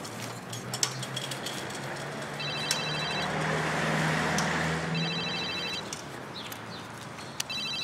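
Mobile phone ringing in short trilling bursts, about 2.5 s in, 5 s in and again near the end. Under it a van's engine and tyres pass by, loudest about 4 seconds in.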